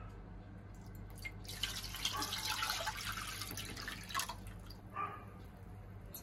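Cornflour-and-water slurry poured from a bowl into a kadhai, a splashing pour that begins about a second and a half in and stops about three seconds later.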